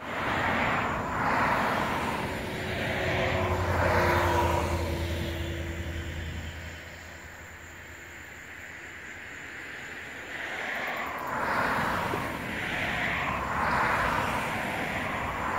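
Road traffic: the hiss of passing car tyres swelling and fading over and over, with an engine hum and a faint steady tone during the first six seconds or so. It goes quieter in the middle, then more cars pass.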